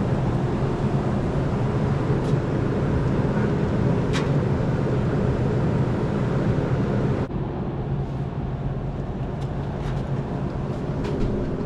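Steady vehicle engine hum and road noise. About seven seconds in, the hiss suddenly drops and the hum carries on.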